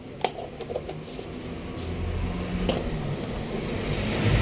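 A pepper shaker set down on the counter with a sharp tap, a few light clicks and a second tap a little past halfway, over a low rumble that grows steadily louder.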